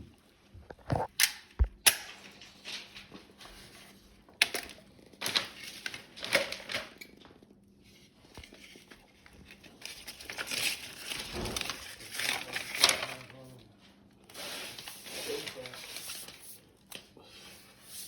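A few sharp knocks, then repeated bouts of scraping and crinkling work noise.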